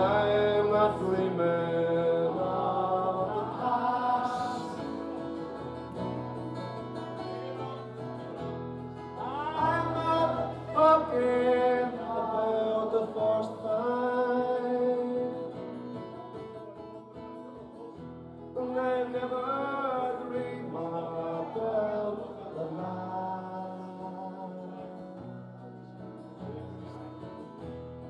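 A man singing live into a microphone, accompanied by his own strummed acoustic guitar. The sung phrases come in lines with short, quieter guitar-only gaps between them.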